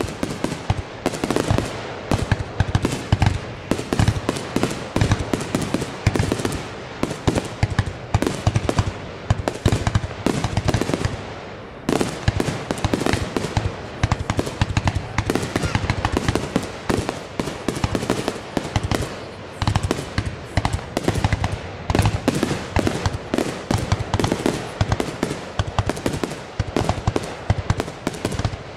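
Fireworks going off in a dense, continuous barrage: rapid bangs and crackles, several a second, with no real pause.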